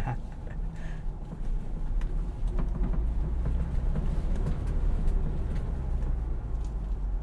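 Ford Bronco's 2.7-litre twin-turbo EcoBoost V6 running at low speed off-road, heard from inside the cabin as a steady low rumble, with scattered light knocks and rattles as it crawls over rutted ground.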